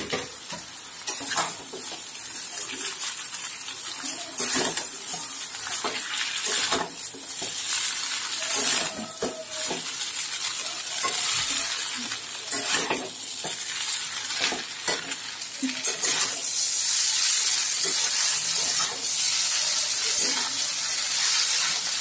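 Boiled chow mein noodles and vegetables sizzling in hot oil in a metal kadai while a spatula stirs and tosses them, scraping and knocking against the pan. The sizzle grows louder about three-quarters of the way through.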